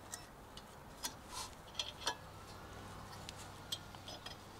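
Faint, scattered metallic clicks and taps of a brake pad's steel backing plate and spring clips being worked into a Mazda MX-5 NB's rear caliper bracket by hand.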